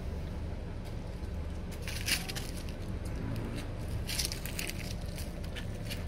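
Crunching and crackling of footsteps on dry leaves and dirt, loudest about two and four seconds in, over a steady low rumble.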